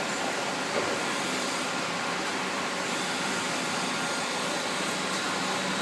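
A small induction gold-melting furnace running: a steady fan-like rushing noise with a faint steady hum and whine underneath.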